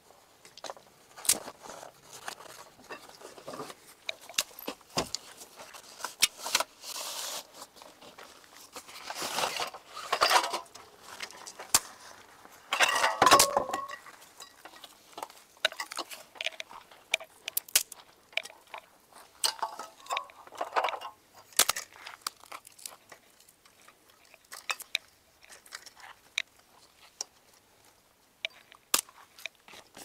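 Light metal clinks and rattles of a charcoal barbecue grill being handled and put together, with scattered sharp clicks and a few brief scraping, rustling passages.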